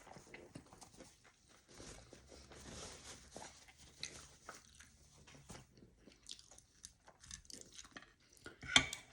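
Close-up chewing of a large mouthful of sushi roll: soft, wet mouth clicks and smacks, with a louder click near the end.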